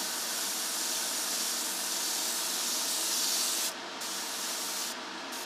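Airbrush hissing as air and primer are pulled through it, over the steady running of the spray booth's extractor fan. The hiss cuts off a little before four seconds in, comes back for about a second, then sounds in short bursts as the trigger is worked.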